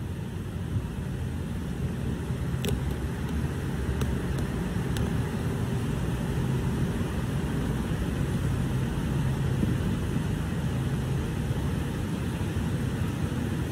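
Steady low rumbling background noise, with a few faint clicks about three to five seconds in.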